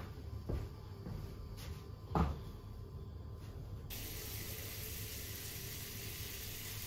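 Two soft thumps, then about four seconds in a shower starts running: a steady, faint hiss of falling water.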